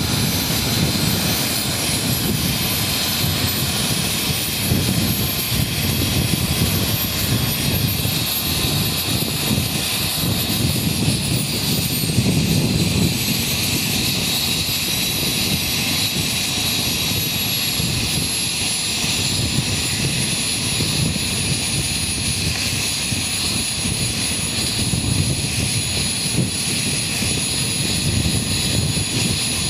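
The twin model jet turbines of a Skymaster A-10 running with a steady high whine over a rushing roar; the whine's pitch drops slightly about eleven to thirteen seconds in.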